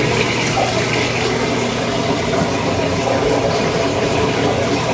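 Washing machine drain pump running, with water rushing out of the drain hose into the standpipe as the washer pumps out; a steady hum under the flowing water.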